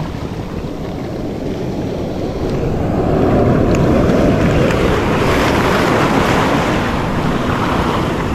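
Wind buffeting the microphone over breaking surf, a steady loud rush that swells louder about three seconds in as a wave washes in.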